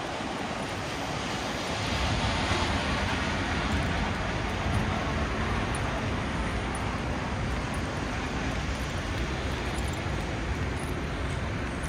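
Steady city street noise: an even rumble and hiss of passing traffic, heaviest in the bass.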